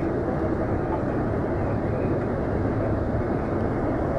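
Steady rumble and road noise of a moving vehicle, heard from inside the cabin.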